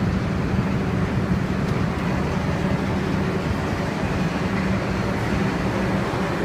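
R62A subway train running, a steady rumble with a constant low hum.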